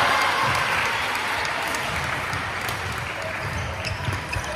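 Badminton doubles rally on a wooden indoor court: short sharp racket strikes on the shuttlecock and players' footsteps thudding on the floor. A din of voices and hall noise is loudest at the start and eases off after about a second.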